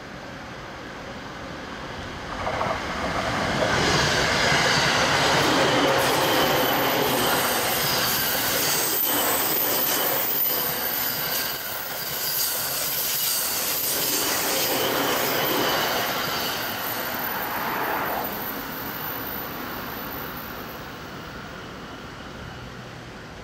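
JR East E231 series electric train passing at speed. The rumble of its wheels on the rails swells about two seconds in and stays loud, with clacks at the rail joints and a thin high-pitched ring over the top, then fades over the last few seconds as the train runs away.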